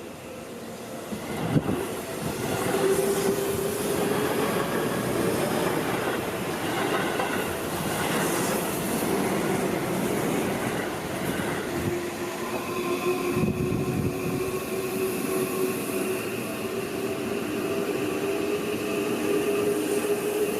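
Electric train passing close by, building up about a second and a half in and staying loud, with wheel and rail noise and a steady whine over it.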